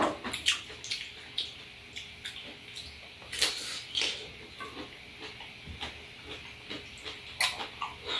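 Two people eating fresh apricots: wet chewing, lip-smacking and slurping, heard as a string of short wet clicks, with a louder juicy burst of bites about three and a half seconds in.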